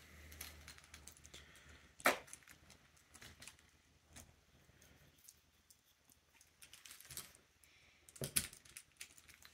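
Faint scattered clicks and light knocks of small plastic toy monster trucks being handled and set down, with two sharper clicks, one about two seconds in and one near the end.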